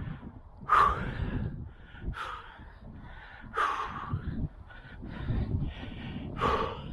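A man breathing hard, with about four short, heavy breaths and gasps, as he strains to haul up a heavy lump of iron on a fishing magnet.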